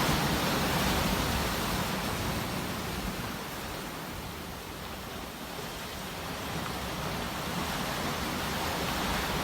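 Sea waves washing on the shore: a steady rush of surf that eases off through the middle and swells again near the end.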